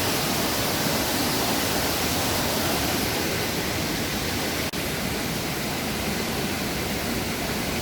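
Steady rushing of waterfalls, a dense even hiss of falling water that dips for an instant about four and a half seconds in.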